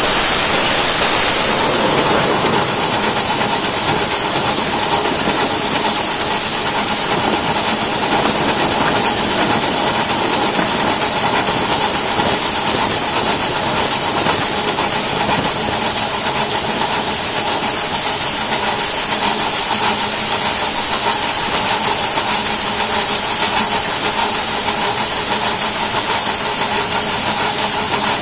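Two-foot-gauge Crown steam locomotive running, heard from the cab as a steady, loud hiss of steam.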